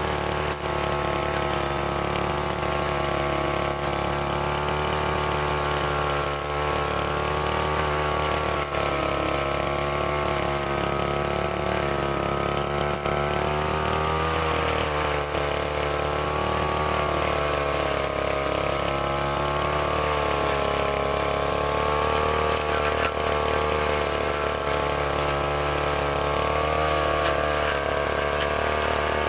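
STIHL FR 3001 backpack brushcutter's two-stroke engine running steadily, its pitch wavering gently up and down as engine speed varies.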